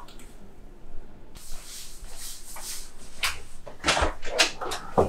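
Handling noises: a run of clicks, knocks and rustles that grows busier after the first second or so, like containers and a cupboard or appliance door being worked.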